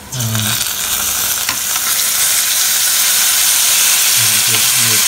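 Fish sauce with garlic and chili poured into a pan of hot oil with deep-frying cicada nymphs: the frying jumps suddenly into a loud sizzle as the liquid hits the oil, builds over a couple of seconds, then holds steady.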